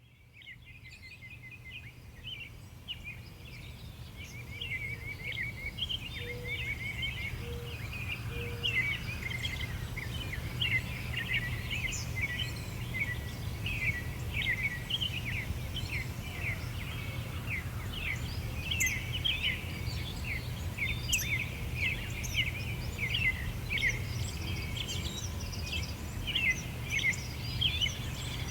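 A chorus of small birds chirping and twittering densely and continuously over a steady low rumble, fading in from silence over the first few seconds.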